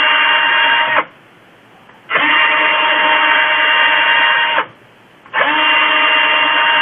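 Electric drill running in three bursts of about two seconds each, with a steady whine and no change in speed, while drilling out holes in a plastic foot-switch paddle. It stops about a second in, runs again from about two seconds to four and a half, and starts a third time near five and a half seconds.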